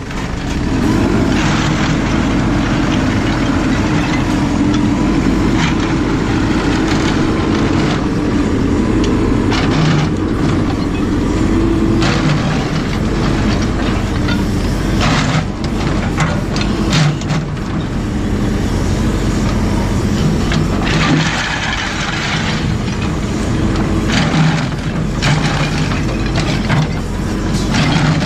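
JCB 4CX backhoe loader's diesel engine running loud and steady under working load, with revs coming up about a second in. Scattered knocks and clatters sound over it.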